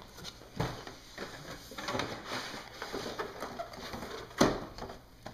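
Cardboard kit box being opened and handled: cardboard scraping and rustling as the inner tray slides out, with a knock about half a second in and a louder thump about four and a half seconds in.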